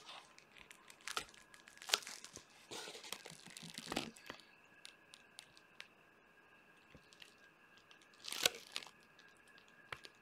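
Crinkling of plastic drop sheeting and rustle of gloved hands handling a wet, freshly poured acrylic canvas as it is lifted and tilted, in irregular bursts with small clicks and crackles, loudest about two, four and eight and a half seconds in.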